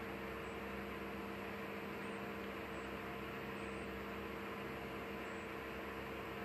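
Steady electrical hum with a constant hiss, unchanging throughout, with no distinct events.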